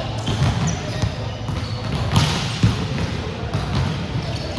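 A volleyball being struck and bouncing on an indoor court, scattered sharp knocks over a steady low rumble of play in a large hall, with the clearest knock a little past halfway.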